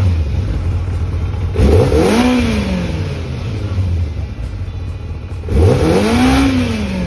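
Kawasaki ZX-9R's inline-four engine idling, with two quick throttle blips about four seconds apart, each revving up and dropping straight back to idle, as the newly fitted throttle cable is tested.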